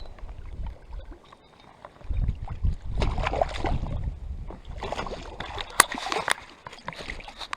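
Lake water splashing and sloshing close to a float tube as a small hooked cutthroat trout is brought in, with low wind rumble on the microphone. Two sharp clicks come about half a second apart near the end.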